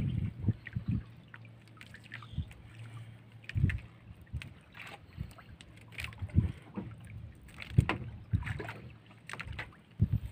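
Wet gill net being hauled by hand over a boat's gunwale, with irregular knocks and rustling scrapes as fish are worked out of the mesh, over a faint steady low hum.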